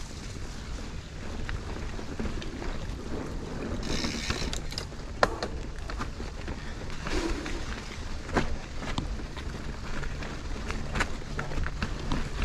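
Mountain bike rolling along a dirt trail: steady tyre and wind rumble, with the bike rattling and giving a few sharp knocks over bumps.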